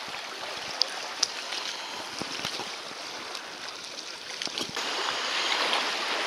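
Steady rush of river current around a kayak, with a few light splashes and knocks from paddle strokes. The rush gets louder and brighter about five seconds in.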